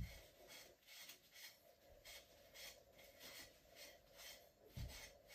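Faint, quick rubbing strokes, about two a second, as the wood stove door's gasket channel is dampened with water before the gasket cement goes on. A soft low thump at the start and another near the end.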